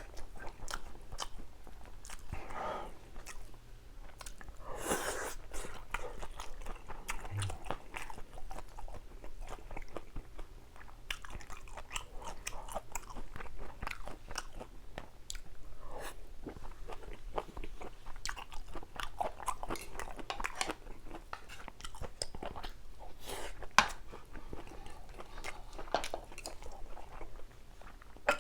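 Close-miked eating sounds: biting and chewing food, with many small wet clicks and crunches from the mouth.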